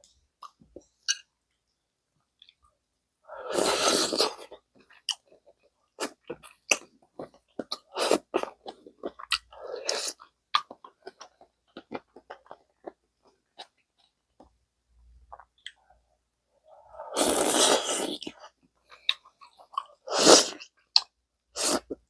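Close-miked eating of gamjatang, pork-bone stew: wet chewing and lip smacks in many short clicks. Two louder, longer breathy slurps or sucks come about three seconds in and again about seventeen seconds in.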